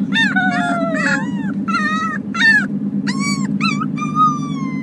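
Two-week-old arctic wolf pup crying in a rapid run of high-pitched squeals, mostly short rising-and-falling yelps with a few longer falling whines. A steady low hum runs underneath.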